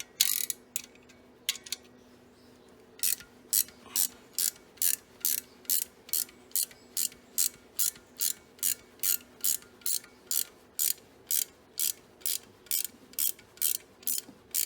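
Ratcheting wrench clicking in a steady rhythm, about two to three clicks a second, as it turns a spring compressor tool to compress a car door hinge spring. A few scattered clicks come first, then the steady ratcheting starts about three seconds in.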